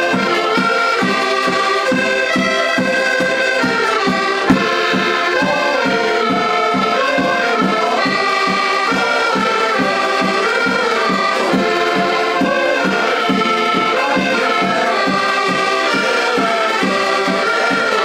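Several diatonic button accordions playing a lively traditional Portuguese tune together, the melody over a steady pulsing bass-and-chord beat.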